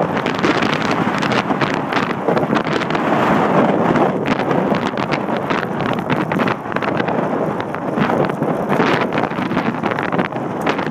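Wind buffeting the microphone of a camera riding on a TerraTrike Rambler recumbent trike, over the steady rumble of its tyres on a rough path, with frequent short rattles and clicks as the trike runs over the bumps.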